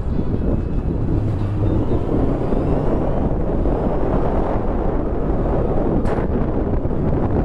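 Wind buffeting the microphone of a camera on a moving Honda motorcycle, a steady rush mixed with engine and road noise. A short sharp noise cuts in briefly about six seconds in.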